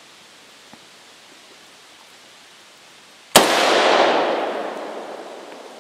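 A single Ruger Mini-14 rifle shot, firing a tracer round, about three and a half seconds in. The report echoes through the forest and dies away over about two seconds.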